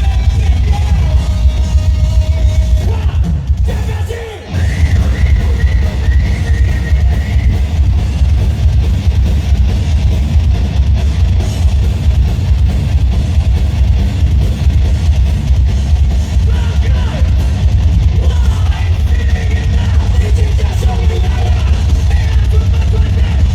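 Live heavy metal band playing loud, with a pounding drum kit and yelled vocals. The music briefly drops away about four seconds in, then comes back in full.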